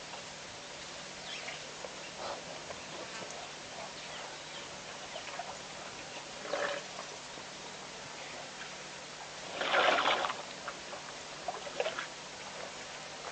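Animals at a waterhole drinking and splashing: short bursts of sloshing water, the loudest about ten seconds in, over a steady background hiss.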